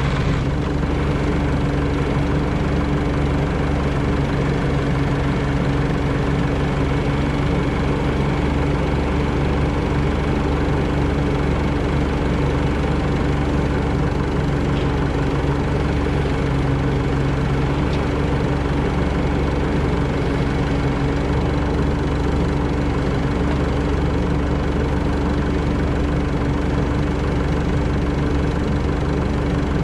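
Diesel engine idling steadily, its speed not changing.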